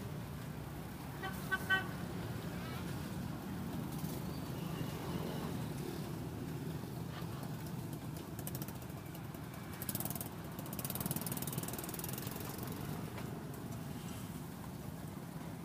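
Steady street traffic rumble with a short vehicle horn toot about a second and a half in, and a stretch of hiss around the middle.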